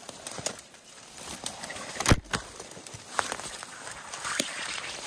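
Footsteps crunching through dry fallen leaves and brush, with branches and twigs brushing against clothing; a single sharp crack about two seconds in, such as a twig snapping underfoot.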